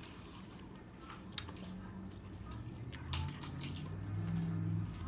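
Close-miked wet chewing and mouth sounds of someone eating, with scattered small clicks. A low steady hum comes in about halfway through and lasts almost to the end.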